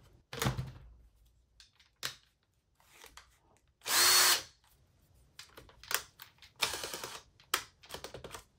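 Ridgid 18V cordless drill, over-volted on a Ryobi 24V battery, spun up in several short trigger bursts with clicks between. The longest burst, about half a second near the middle, carries a steady motor whine. The drill is running faster than on its own 18V pack.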